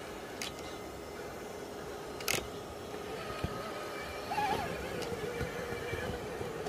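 Axial SCX6 Jeep Rubicon RC rock crawler's electric motor and geared drivetrain whining faintly and steadily at crawl speed as it climbs a rock ledge. Two sharp clicks come from the tires or chassis against the rock, about half a second and two seconds in.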